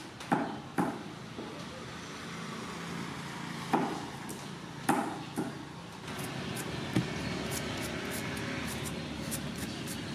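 Cleaver chopping pumpkin on a wooden chopping board: a handful of sharp, irregular knocks in the first six seconds, followed by a steady hiss with faint light ticks.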